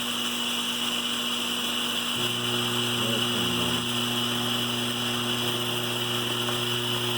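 Lionel 3656 operating cattle car and cattle platform vibrator mechanism buzzing steadily on AC power, a mains-type hum that gets louder about two seconds in.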